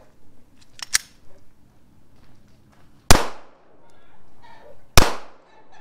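Two loud gunshots about two seconds apart, fired at a LiPo RC battery to make it burst into flame, each crack followed by a short fading ring. A smaller sharp click comes about a second in.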